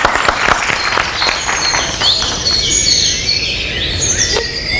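Audience clapping for the first second or so, giving way to a recorded forest soundtrack of birdsong: repeated short, high chirps and trills.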